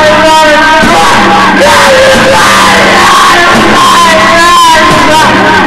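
Loud, dense noise music soundtrack: a saturated wall of distorted sound with wavering, wailing pitched lines over a steady low drone.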